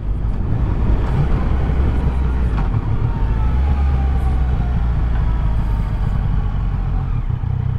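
Yamaha Tracer 900 GT's three-cylinder engine running steadily under way, still on its stock exhaust, heard over steady road and wind noise.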